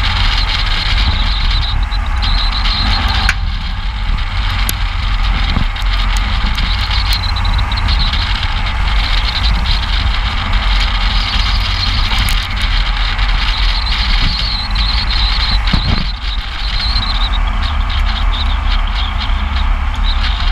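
Wind buffeting a camera microphone on a moving vehicle, over a steady rush of tyre and road noise at speed, with a high squeal that comes and goes.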